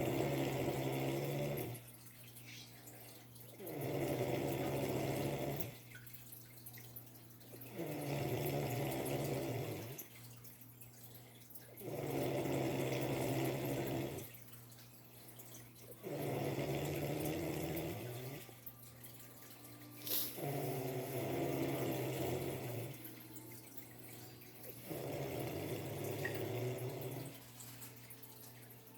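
A sleeping cat snoring loudly in a slow, even rhythm: a snore about every four seconds, each lasting about two seconds. There is a single short click about two-thirds of the way through.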